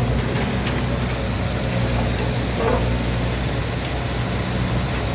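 Steady low hum of an engine running, with a brief tap about two and a half seconds in.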